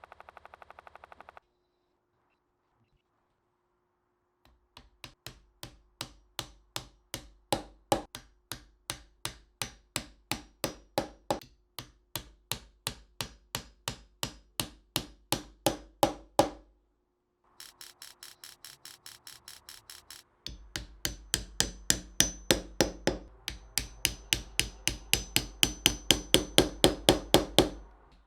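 Evenly spaced hammer blows on wood, about two to three a second. They stop briefly partway through and then resume at a faster pace.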